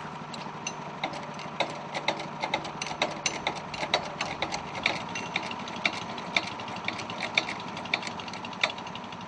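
A small engine running steadily, with irregular sharp metallic clicks and taps over it, about two or three a second.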